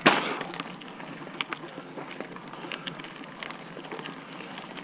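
Santa Cruz Hightower LT mountain bike rolling over dirt singletrack: a steady tyre-on-dirt rush with scattered clicks and rattles from the bike, after a loud sudden burst of noise right at the start.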